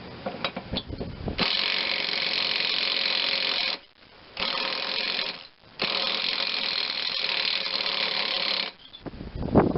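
Cordless impact wrench hammering on a large, stubborn mower-deck nut in three bursts, the longest near the end, with short pauses between them. A few light clicks come before the first burst.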